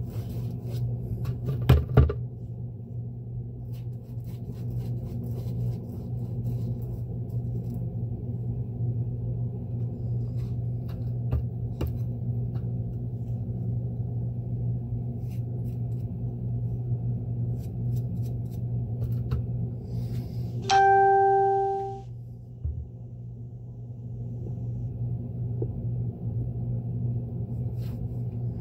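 Steady low hum of running shop machinery. A couple of sharp clicks come near the start, and about 21 seconds in there is one loud, bell-like metallic ring that fades out over about a second.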